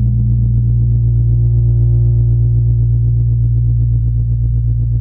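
Synthesized space-ambience drone: a deep, steady low hum under faint held higher tones, which take on a fast pulsing flutter that grows plainer near the end.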